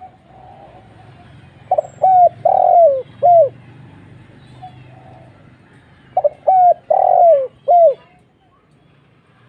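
Spotted dove (tekukur) cooing: two phrases of four notes each, the third note of each long and rolling. The bird sings a few seconds apart, in the song style used to call other doves.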